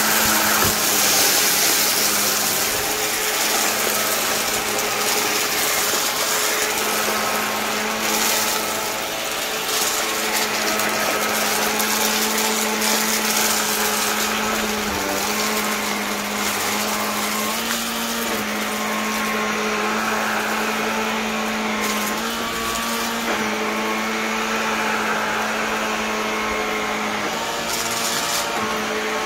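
Vacuum cleaner running steadily, its motor hum shifting slightly in pitch now and then, with a rushing air hiss that swells and fades.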